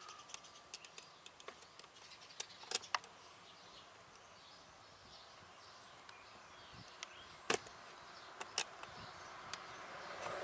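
Scattered sharp clicks and snaps of hard plastic being nipped and trimmed with a hand cutting tool at the edge of a 2003 Toyota 4Runner's dash switch panel. There are about ten short clicks at uneven intervals, the loudest about three seconds and seven and a half seconds in.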